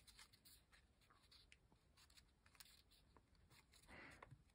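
Near silence with faint handling of paper: a few small ticks and a soft rustle about four seconds in as a tiny paper envelope is handled.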